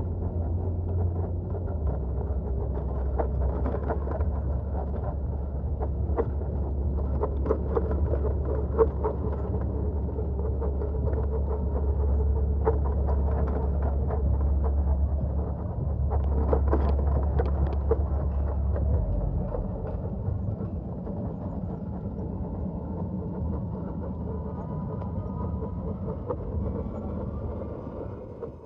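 Low rumble of wind and road noise on a camera carried on a moving bicycle, with scattered clicks and rattles. The rumble drops off about two-thirds of the way through.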